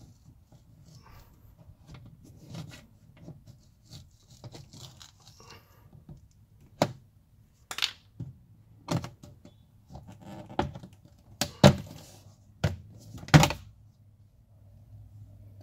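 Plastic honeycomb access cover being pried off the inner panel of an Audi S3 rear door: faint handling rustle, then about eight sharp snaps and knocks over the second half as it comes loose, the loudest near the end.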